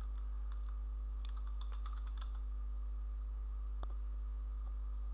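Computer keyboard typing: a quick run of keystrokes about a second in, then a single sharper key press near four seconds, the Enter key that loads the typed web address. A steady low electrical hum runs underneath.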